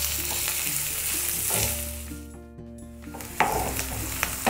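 Chopped onion sizzling as it fries in hot oil in a nonstick kadhai, stirred with a wooden spatula. The sizzle fades for about a second in the middle, then comes back.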